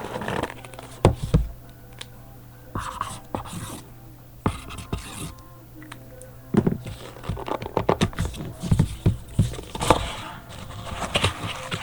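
Hands handling and opening a cardboard trading-card box: irregular scraping and rustling with scattered short knocks.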